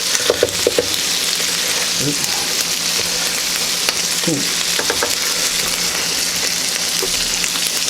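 Ground-beef burger patties sizzling steadily on a George Foreman electric contact grill as they are turned over, with a few brief pitched squeaks or clicks from the handling.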